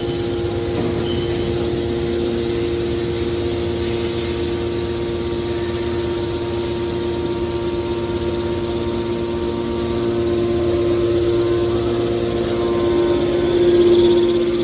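Hydraulic metal baler's power unit running with a steady hum-whine, growing louder about ten seconds in and peaking near the end.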